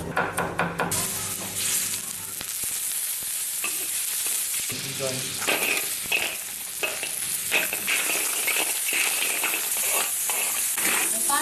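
Food sizzling in a hot pan or wok, stirred with short scrapes and clinks of a spatula.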